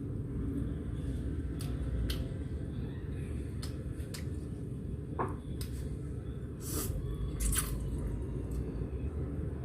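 Eating sounds close to the microphone: chewing and wet mouth noises with scattered small clicks, over a steady low rumble.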